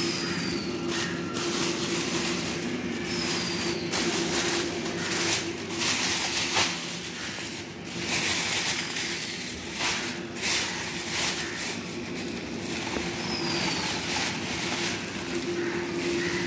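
Thin clear plastic bags crinkling and rustling in irregular bursts as hands dig through flowers packed in them, over a steady low hum.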